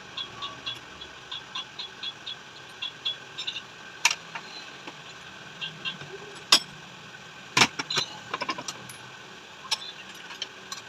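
Light metal clicks and taps from handling motorcycle rear shock absorber parts and tools, with a few sharper knocks, the loudest about six and a half seconds in, over a steady background hum.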